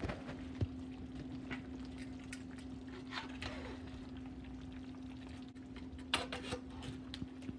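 Pot of stewed oxtails in gravy simmering on the stove, with scattered small pops and clicks, some scraping around three seconds in and a few sharper clicks about six seconds in, over a steady low hum.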